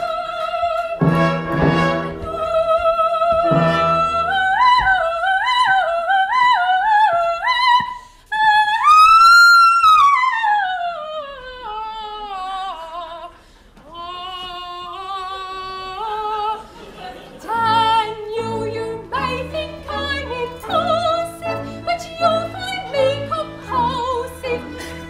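A soprano sings an operetta aria with wide vibrato and instrumental accompaniment. About nine seconds in she reaches a high held note and slides down from it. From about seventeen seconds in, the accompaniment settles into a steady rhythmic pulse beneath the singing.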